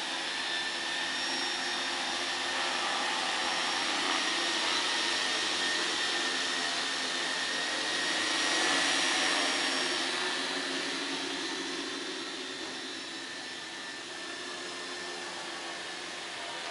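Xaircraft 600D quadcopter's motors and propellers running in flight, a steady whine with several fixed high tones. It is loudest about eight to nine seconds in as the craft comes close, then fades as it climbs away.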